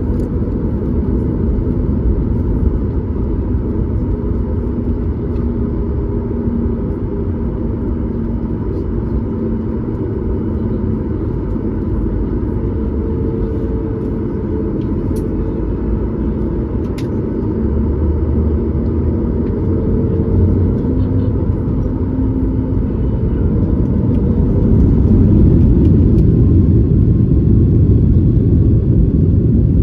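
Cabin noise inside a Boeing 737 MAX 8 with CFM LEAP-1B engines: a steady low rumble from the engines and airframe, with faint steady tones over it. It grows louder near the end.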